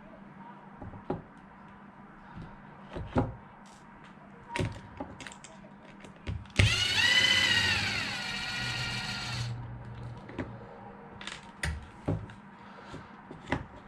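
Small electric driver running for about three seconds a little past the middle, its whine picking up at the start and sagging a little before it stops, as it backs a bolt out of the RC car's servo mount. Small clicks and knocks from handling parts and tools come before and after.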